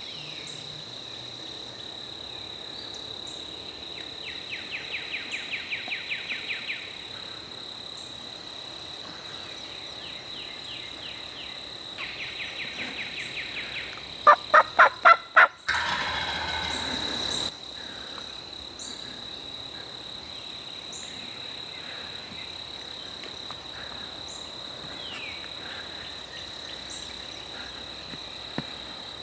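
Wild turkey calling. Two quick rattling series come first, then about halfway through a loud run of five notes and a rough gobbling sound that cuts off abruptly. A steady high insect trill runs underneath.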